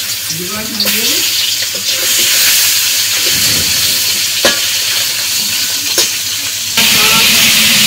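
Pieces of taki (spotted snakehead) fish frying in oil in a steel karahi, sizzling steadily as they are stirred and turned with a metal spatula, with two sharp knocks of the spatula on the pan in the second half.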